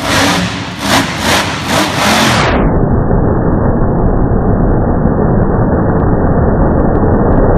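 Monster truck engine revving hard in several surges as it charges the ramp. About two and a half seconds in, the sound drops into a deep, muffled, drawn-out rumble as slow-motion playback stretches it.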